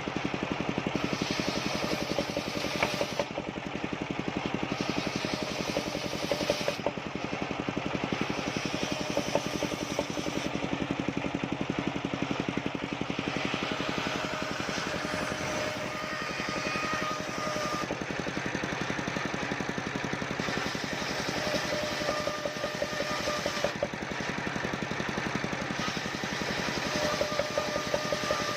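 Engine of a travelling circular-saw sawmill running steadily as it saws waru wood, with a higher whining tone that comes and goes several times.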